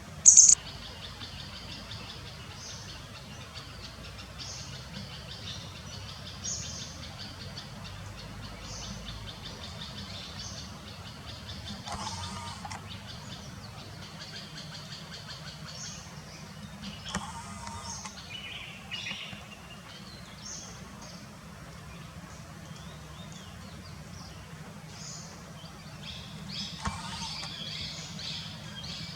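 Small birds chirping and calling repeatedly in short high notes, with one loud, sharp call about half a second in and a busier burst of chirps near the end.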